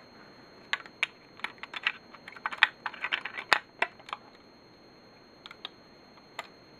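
Plastic LEGO model being handled, its bricks and movable parts clicking and clattering against each other and the fingers: a quick run of sharp clicks over about three seconds, then a few single clicks near the end.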